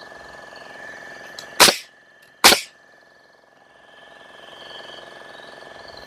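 Framing nailer firing twice, just under a second apart, driving 3 1/4-inch nails into the floor joists: two sharp cracks.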